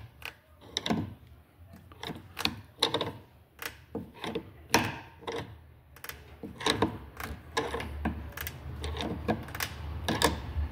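Irregular clicks, knocks and short creaks from a Honda Civic's worn rear lower control-arm bushings as the suspension arm is worked: the blown bushings letting the arm crack and creak, the noise the car makes over dips.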